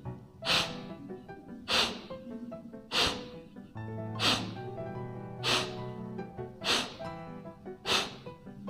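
Kapalbhati breathing: seven sharp, forceful exhalations through the nose, about one every 1.2 seconds, over background music.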